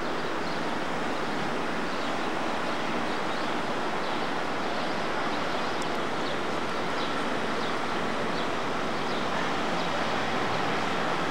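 Steady even roar of city traffic heard from a rooftop, with a few faint, short high chirps scattered through it.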